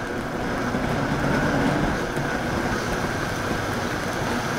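Vitamix blender motor running turned up to a higher speed, pureeing a full jar of whole tomatoes, skins and seeds included, into sauce: a steady, dense whir.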